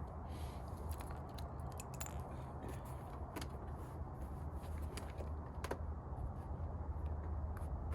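Scattered light clicks and metallic taps of hand tools and fasteners as the rear fender is unbolted from the motorcycle, over a steady low hum.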